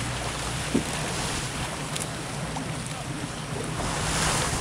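Wind buffeting the microphone and water rushing past a moving boat on the open ocean, under a steady low hum, with one brief knock about a second in.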